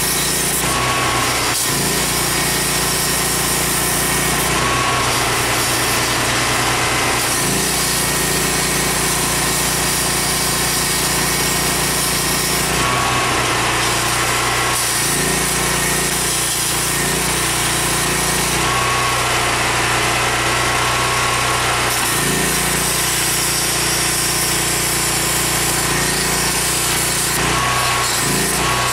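Handheld pneumatic cutting tool running steadily as it cuts through a rusted sheet-metal rocker panel. Its lower tone shifts every few seconds as the tool bites and eases off the metal.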